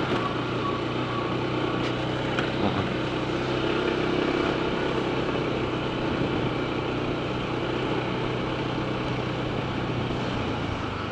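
Honda ADV 160 scooter's single-cylinder engine running steadily while riding, with a constant low hum under road noise.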